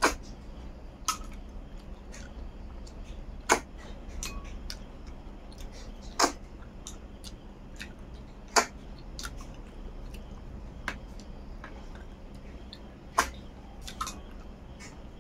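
Short, sharp sucks and slurps from a mouth pulling cooked snails out of their shells, about seven at uneven gaps.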